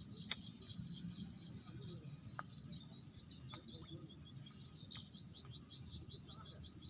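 Insects chirping in a rapid, continuous pulsing chorus, with a steady high-pitched tone above it. There is a single sharp click about a third of a second in.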